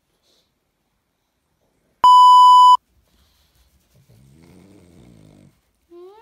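A single loud electronic bleep, one steady high tone lasting under a second, about two seconds in. Then a pug's rough snoring breaths, and near the end a brief rising-then-falling whine.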